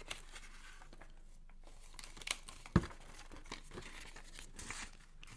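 Close-miked crinkling and tearing of packaging during an unboxing, in scattered crackles and rustles, with one sharp click a little before three seconds in.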